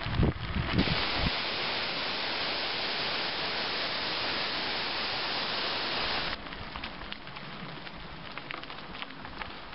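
Steady rushing of a waterfall, which cuts off suddenly after about five seconds. It gives way to mountain-bike tyres crunching over a gravel track, with scattered small ticks and rattles.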